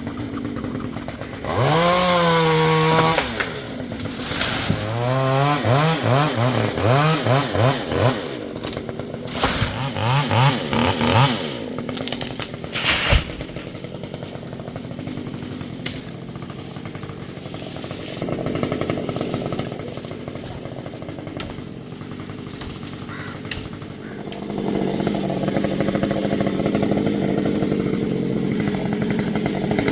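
Two-stroke Stihl chainsaw revving up and down in several bursts, then running more steadily while cutting through the mango trunk, growing louder near the end.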